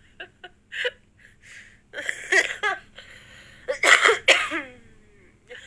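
A woman coughing in two loud fits, the first about two seconds in and a louder one about four seconds in, the last cough trailing off in a falling voiced sound.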